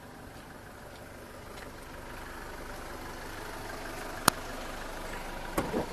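Force Traveller van's diesel engine idling steadily, growing louder as the front of the van is approached. A sharp click sounds about four seconds in, and a couple of softer clicks come near the end.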